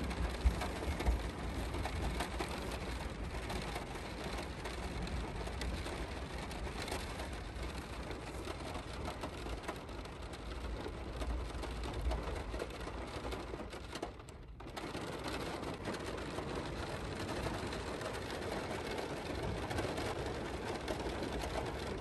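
Steady rain falling on a car's roof and windows, heard from inside the cabin, with a brief dip about fourteen seconds in.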